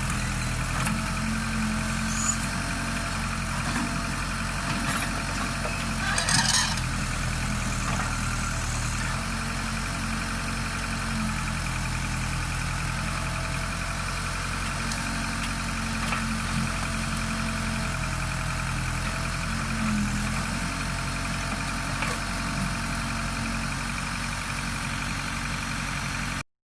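Case backhoe's diesel engine running steadily, with a few short knocks over it, the loudest about six seconds in.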